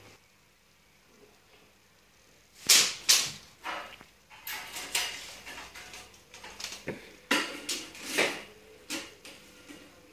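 Irregular sharp clatters and short scrapes of hand tools and a steel tape measure being handled, starting about three seconds in after a quiet start.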